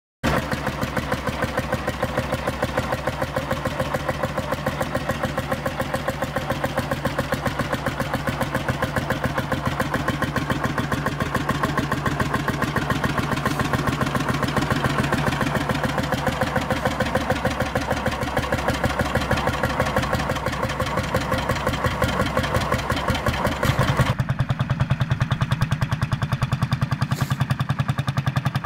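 Lanz Bulldog D7506's single-cylinder two-stroke hot-bulb engine running with a fast, even beat. About 24 seconds in the sound changes, with more bass and less top, as the tractor is heard under way across the field.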